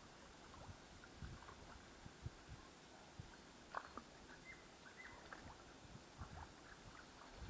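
Near silence with faint scattered ticks and short chirp-like blips, and a few soft low bumps.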